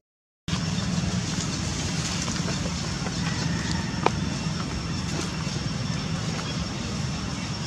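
Steady low rumble with a hiss over it, cut off for half a second at the start, with a single sharp click about four seconds in.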